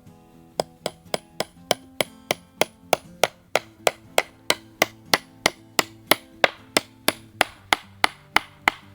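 Hammer blows driving a nail into wood: a steady run of sharp strikes, about three a second.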